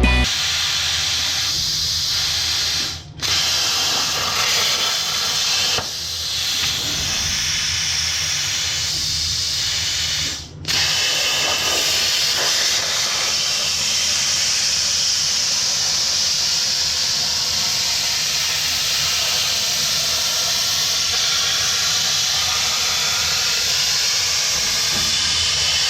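CNC plasma torch cutting steel plate: a steady, loud hiss that cuts out briefly twice, about 3 seconds in and about 10 seconds in.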